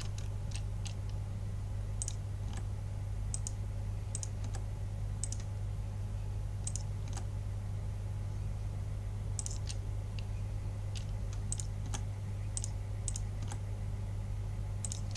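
Computer keyboard key presses and mouse clicks, short and irregular, a couple a second, over a steady low hum.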